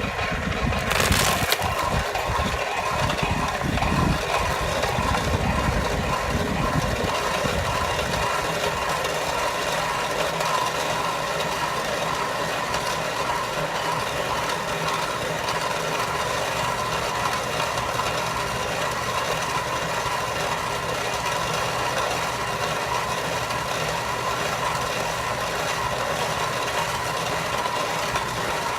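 Electric-motor-driven feed grinder, belted down through a jack shaft, running steadily with a constant hum and whine. There is a short sharp noise about a second in, and a heavier low rumble for the first eight seconds or so that then eases.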